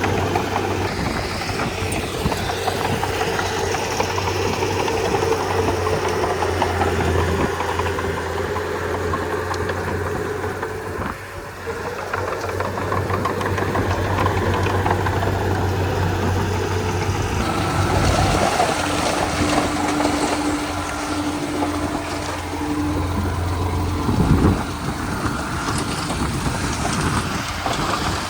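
Komatsu D31P bulldozer's diesel engine running steadily while the machine works soil and mud. Its loudness dips briefly about eleven seconds in, and a short loud thump comes near the end.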